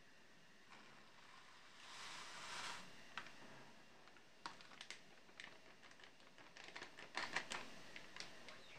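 A plastic soup-mix packet crinkling and being shaken as dry flakes pour into a saucepan of water. A soft rustle about two seconds in is followed by a run of small sharp clicks and ticks, thickest near the end.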